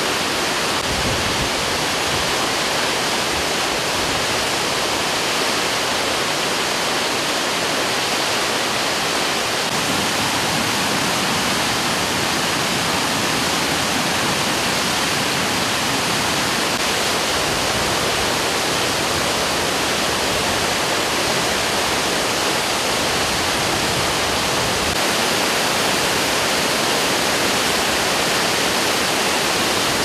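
Muradiye Waterfall, about 20 m high, in full spring flow after heavy winter snow: a steady, loud rush of falling water.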